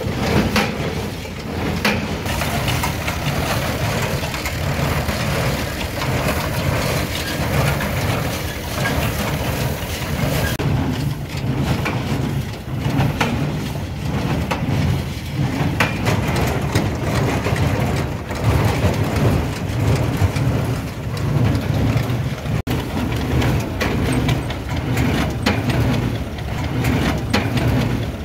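CLAAS Markant 50 small square baler at work behind a tractor: the baler's pickup and plunger mechanism clattering with repeated knocks over the steady running of the tractor engine.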